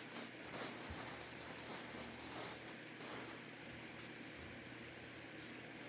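Faint rustling and light handling noises that fade after about three seconds, leaving a steady low hiss.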